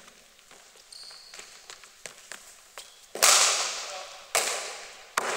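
Cricket bat striking a ball with a loud, sharp crack about three seconds in, ringing on in the echo of the sports hall, followed by two more loud knocks about a second apart.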